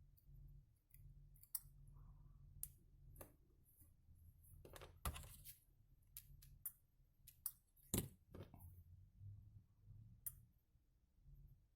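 Faint scattered clicks and light taps of small tools and wire being handled while soldering a wire, the two loudest about five and eight seconds in, over a faint low hum.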